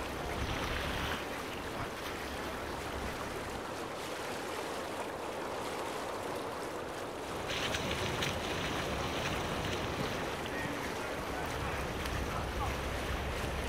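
Sea water rushing and splashing along the hull of a sailboat under way, with wind. It grows louder about halfway through.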